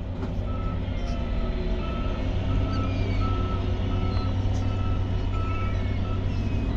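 A heavy vehicle's reverse alarm beeping steadily, about two beeps a second, over a low, steady engine rumble, with a few faint seagull calls.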